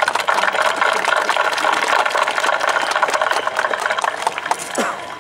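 Crowd applauding: a dense, even clatter of hand claps that eases off near the end.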